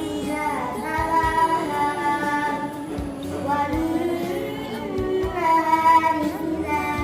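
A young santri's solo voice chanting melodically in long, ornamented phrases, with a brief breath about three seconds in.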